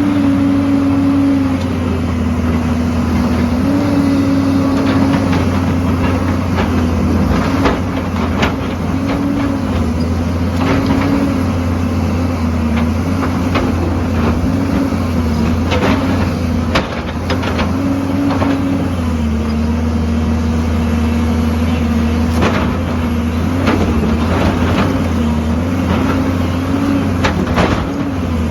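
Heavy construction machine's diesel engine running under load, its pitch dipping and rising again and again, with scattered clanks and knocks throughout.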